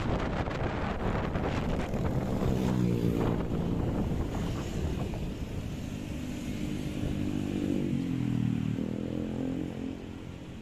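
Motorbike engine running while riding, with wind buffeting the microphone; the engine's pitch rises and falls, dipping about eight seconds in and then climbing again.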